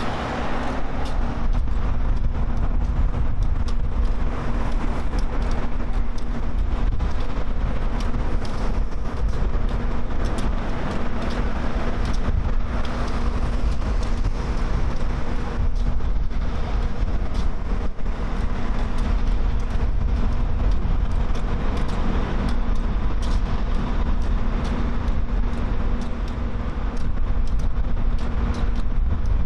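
Steady engine hum over a heavy low rumble of wind on the microphone.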